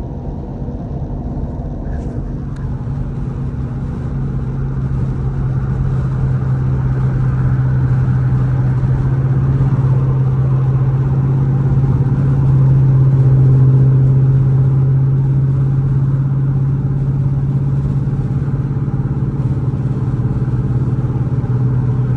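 Cammed 5.7-litre Hemi V8 of a Dodge Charger R/T cruising at freeway speed: a steady low exhaust drone that builds gradually and eases slightly after the middle. The car has an exhaust leak that the owner places near the newly fitted headers.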